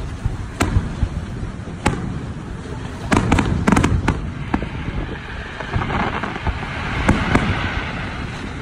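Aerial firework shells bursting in a series of sharp bangs, several close together about three to four seconds in and two more near the end, with a stretch of hissing crackle in between.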